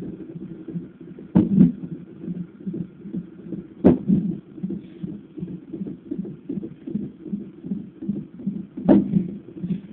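Fetal heartbeat heard through a fetal doppler: a fast, even whooshing pulse. It is broken three times by a sharp thump, the unborn baby hiccuping: about a second and a half in, about four seconds in, and near the end.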